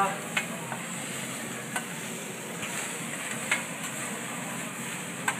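Fried rice sizzling on a hibachi steel griddle while a metal spatula scrapes through it, with a sharp tap of the spatula on the plate every second or two.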